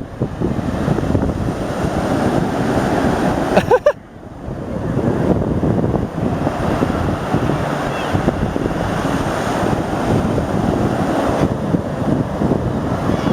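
Ocean surf washing ashore with wind buffeting the microphone; the noise drops out suddenly about four seconds in and swells back up.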